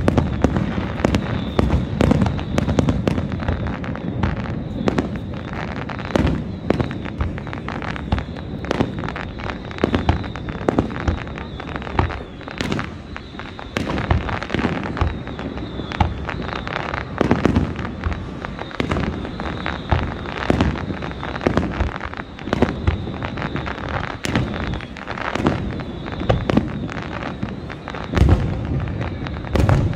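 Low- and mid-altitude fireworks going off without pause: rapid bangs and crackling, with a heavier boom near the end.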